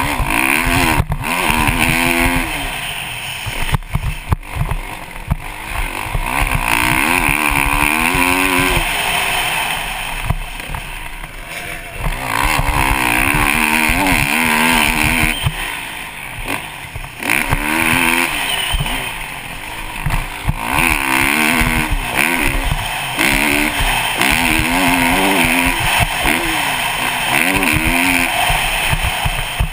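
Kawasaki KX450 motocross bike's single-cylinder four-stroke engine revving hard, its pitch sweeping up and falling back again and again as it accelerates, shifts and backs off the throttle, with several brief dips where the throttle is closed.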